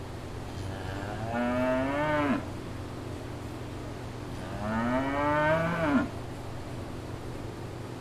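A cow mooing twice, each long call rising in pitch and breaking off with a quick drop at the end, over a steady low hum.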